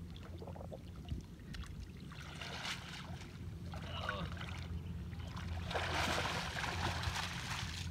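Muddy river water splashing and sloshing as a cast net is hauled up out of the water by a wading fisherman, loudest over the last two seconds.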